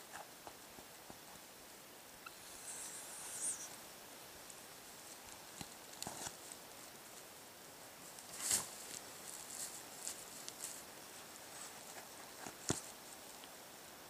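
Faint, scattered clicks and scratchy scraping of a pocket knife and hands working the hide off a bull elk's front leg during skinning. The sharpest crackle comes a little past halfway, with another near the end.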